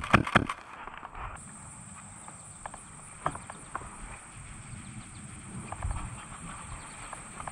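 Soft footsteps through grass and weeds with rustling gear, a few irregular dull thuds and light ticks. A quick cluster of sharp clacks comes in the first half-second.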